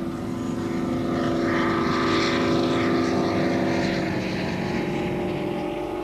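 Class 55 Deltic diesel-electric locomotive passing close at speed, its twin Napier Deltic two-stroke diesel engines giving a steady droning note. The drone and a rush of air and wheels grow to their loudest about two to three seconds in as it goes by, then ease off as the coaches follow.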